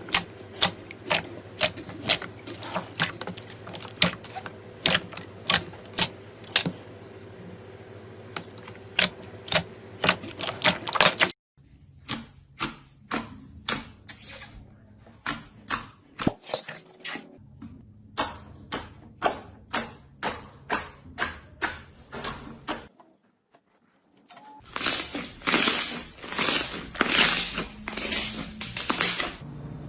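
Slime being squeezed and pressed, giving a run of sharp clicks and pops at about two a second. The sound cuts abruptly between takes several times, with denser, louder crackling near the end.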